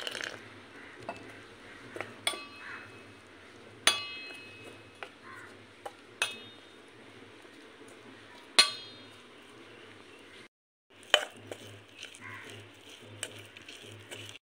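Metal spoon stirring gram-flour batter in a stainless steel bowl, scraping, with about four sharp clinks of the spoon against the bowl that ring briefly. Water is poured in at the very start.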